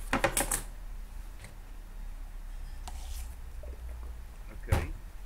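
A quick run of clicking keystrokes on a computer keyboard, then a few single key clicks, the last one near the end the loudest, over a low steady hum.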